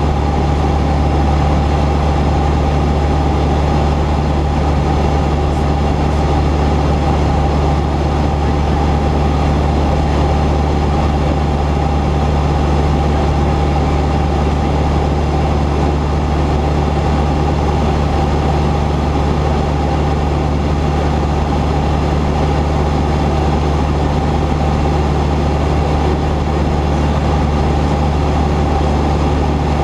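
Cessna 172's piston engine and propeller droning steadily at constant power, with no change in pitch or level.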